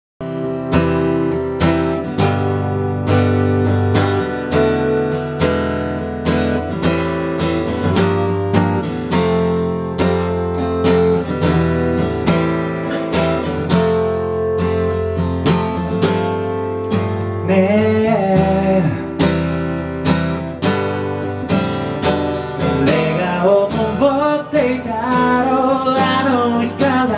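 Steel-string acoustic guitar strummed in a steady rhythm, opening a song. A man's singing voice comes in over the strumming about two-thirds of the way through and again near the end.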